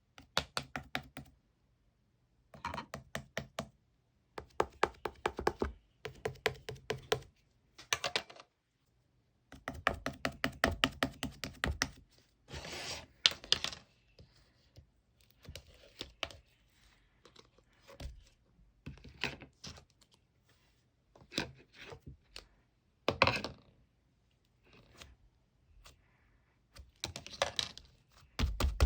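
Homemade slime being squeezed and pressed by hand, giving runs of rapid sticky clicks and small air-bubble pops, each run a second or two long with short pauses between.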